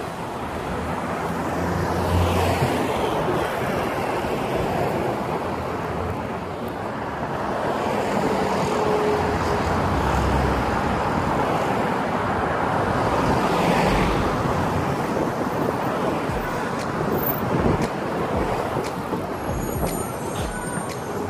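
Steady road traffic on a busy multi-lane street, cars driving past, with a swell as a vehicle passes close about two seconds in and again a little past the middle.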